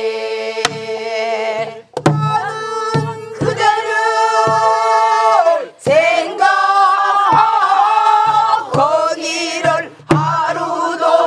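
A group of men and women sing a Namdo folk song in unison, with long held notes that slide in pitch. Slow, steady strokes on buk barrel drums, about one every second and a half, accompany them. The singing breaks off briefly a few times for breath.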